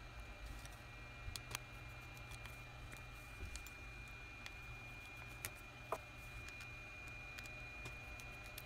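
Scattered faint clicks and taps as fingers and a pry tool work on an opened OnePlus 3T's internals, the sharpest about six seconds in. Beneath them are a steady low hum and a faint, steady high whine.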